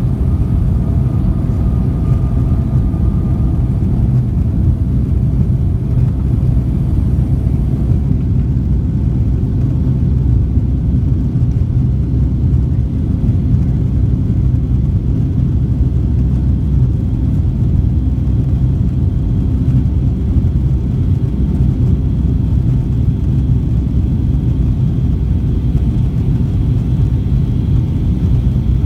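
Boeing 757-200 heard from inside the cabin at a window seat: a loud, steady low rumble of engines and airframe, with a faint higher whine rising slightly near the end.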